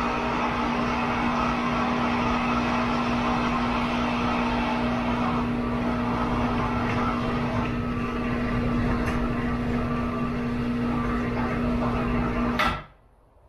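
Electric cable hoist running steadily as it lowers a homemade lift platform on steel strut-channel rails, with a steady motor hum; it stops abruptly near the end as the platform reaches the floor. The owner finds the descent a bit herky and thinks it needs grease.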